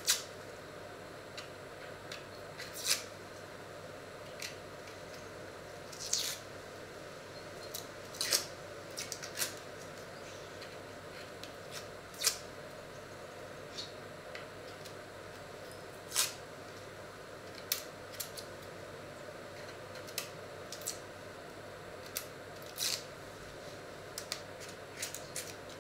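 Dry, papery onion skin crackling as it is peeled off an onion by hand with a small knife: irregular short crackles and ticks, over a steady faint hum.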